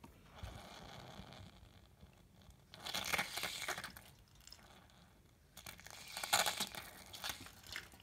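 Water flushing from the group head of a Cimbali Microcimbali lever espresso machine and splashing below, louder in two spells about three and six seconds in.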